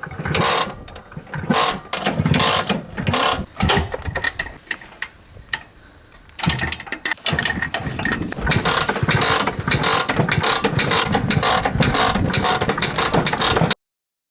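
An old Vespa scooter being kick-started again and again, its kickstart mechanism ratcheting and the engine turning over without starting. After a short lull, a longer run of rapid mechanical pulsing follows and stops abruptly near the end.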